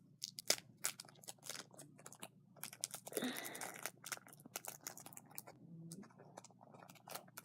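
Irregular small clicks and crinkles as googly eyes are handled and added to beaded slime, with a denser rustle about three seconds in.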